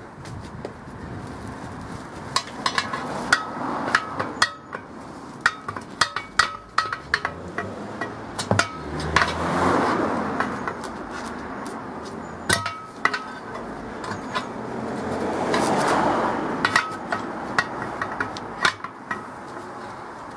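Steel tyre levers clinking and knocking against a Series Land Rover steel wheel rim as a tyre bead is levered over it: many sharp metallic clinks at irregular intervals, some with a short ring. Twice a longer swell of rushing noise rises and fades over a couple of seconds.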